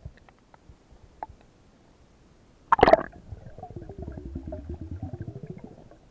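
Underwater speargun shot: one sudden loud impact about three seconds in, followed by about two and a half seconds of fast, ragged rattling pulses as the spear and diver go after the fish.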